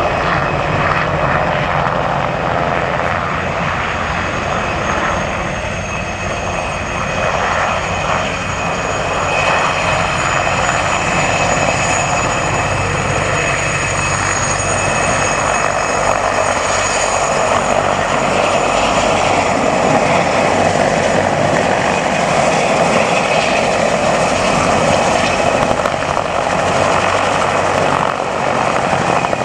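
Turbine helicopters flying low past: steady rotor noise with a high turbine whistle. It grows louder in the second half as the twin-turbine Mil Mi-2 comes in after the Enstrom 480B-G.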